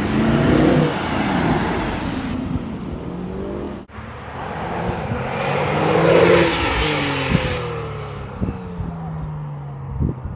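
Car engines running in street traffic, then after a cut a Porsche 911 Turbo's twin-turbo flat-six engine passing by: its note swells and then falls in pitch as the car goes past. A few short knocks follow near the end.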